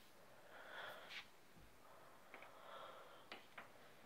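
Near silence: faint breaths close to the phone's microphone, with a few light clicks and taps from the phone being handled.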